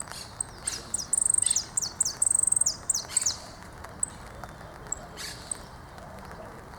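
Saffron finch (dorado) singing. A burst of rapid high trills and short down-slurred notes comes in the first half, followed by a few thin single chips.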